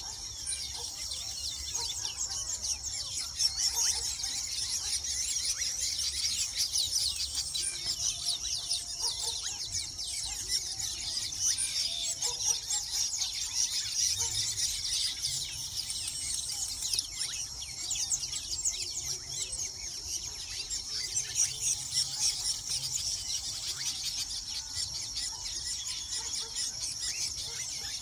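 A nesting colony of weaver birds chattering together: a dense, continuous din of many quick, overlapping high-pitched calls.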